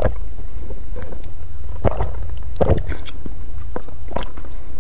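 Drinking through a plastic straw: several short sucking slurps at uneven intervals, over a steady low rumble.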